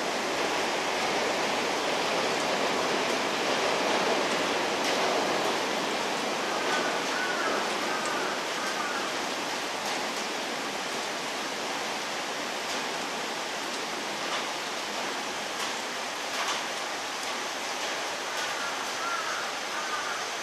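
Steady hiss of heavy rain, with an E7 series Shinkansen approaching over the soaked track and throwing up spray. The hiss swells slightly in the first few seconds. Short high chirps come twice, about seven seconds in and near the end.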